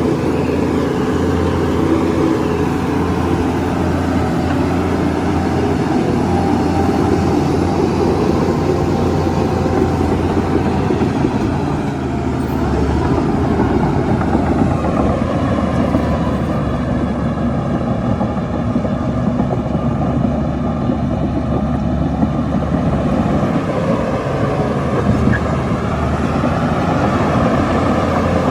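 Heavy diesel engines of earthmoving machinery running steadily under work, their tone shifting for several seconds in the middle.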